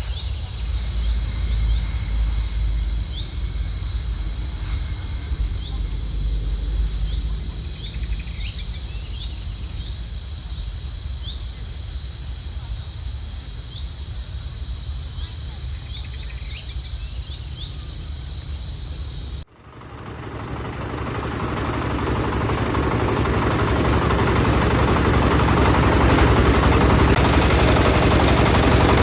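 Insects trilling steadily with birds chirping over them, and low wind rumble on the microphone. About two-thirds of the way in the sound cuts, and a loud engine-driven machine takes over, building up over several seconds.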